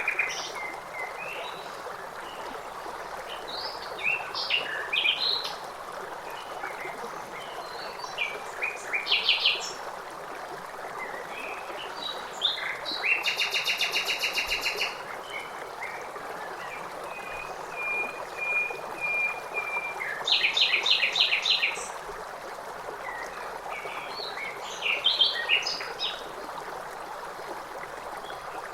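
Songbirds singing over a steady rush of running stream water; several short, rapid trilled songs come every few seconds, the loudest a little before and after the middle.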